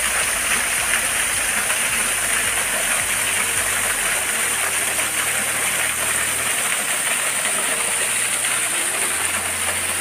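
Steady rush of a waterfall spilling over rock ledges: an even, unbroken hiss of falling water.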